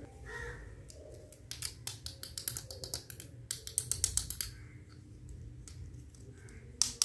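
Small plastic toy kitchen utensils clicking and clattering against each other as they are picked up and handled: a quick run of light clicks, then one sharper click near the end.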